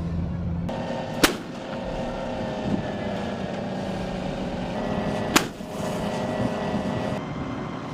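A 155 mm artillery gun firing twice, two sharp reports about four seconds apart, over a steady rumbling background.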